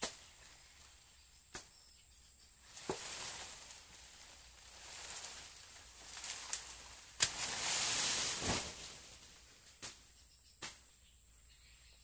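About seven sharp, irregularly spaced chops of a blade into a storm-damaged banana trunk, the loudest about seven seconds in, with swells of rustling from dry, hanging banana leaves in between, the longest just after that loudest chop.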